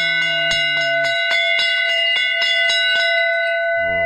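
Brass temple bell struck rapidly and repeatedly by its clapper, about four strokes a second. Its tones ring on steadily underneath, and the strokes stop about three and a half seconds in, leaving the bell ringing.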